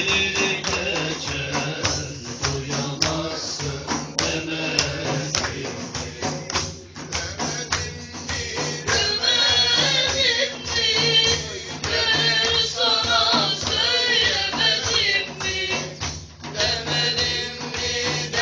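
Live music: a hand drum with jingles beats a steady, fast rhythm while a voice sings a wavering melody, the singing most prominent in the second half.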